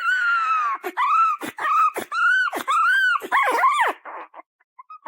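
A dog whining in a run of about six loud, high-pitched cries, each rising and then falling, stopping about four seconds in.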